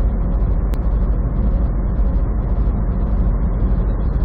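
Semi truck running at highway speed, heard from inside the cab: a steady, loud low rumble of engine and road noise, with a single sharp click about three-quarters of a second in.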